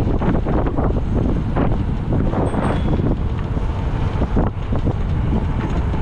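Wind rushing and buffeting over the microphone of a camera riding on an electric enduro bike at speed: a loud, steady low rumble.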